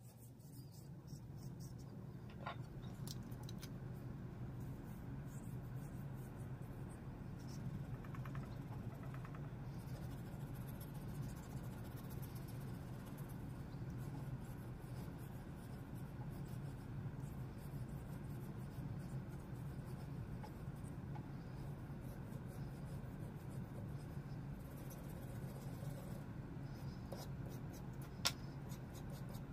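Fountain pen nib and cotton swab scratching and dabbing ink onto paper in quick, light strokes over a steady low hum. There is one sharp click near the end.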